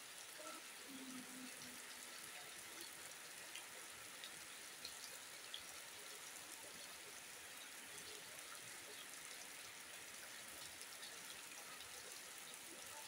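Steady rain falling, an even soft hiss with scattered ticks of single drops.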